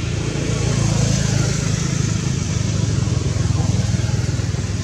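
A low motor rumble, like a motor vehicle passing by, that swells about a second in and eases off toward the end.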